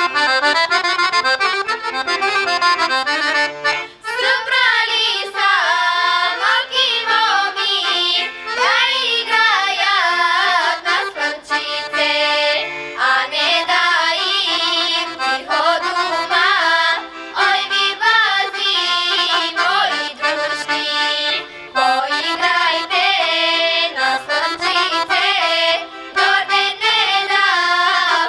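Bulgarian folk song sung by a girls' choir with accordion accompaniment. The accordion plays alone at first, and the voices come in about four seconds in.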